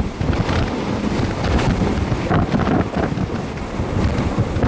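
Strong wind buffeting the microphone, a loud low rushing that rises and falls in uneven gusts.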